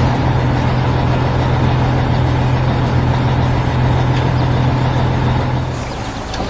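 Heavy construction-vehicle engine sound effect running as a steady low rumble, cutting off near the end.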